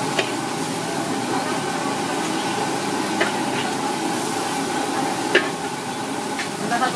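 Steady sizzling and hiss from a hot, steaming wok, with a few sharp metal clinks of the ladle as sauce is spooned over the crab.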